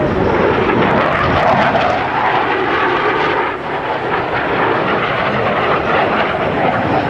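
Loud, steady jet noise from two F/A-18 Hornets flying past, each with twin General Electric F404 turbofan engines. The noise dips briefly about three and a half seconds in.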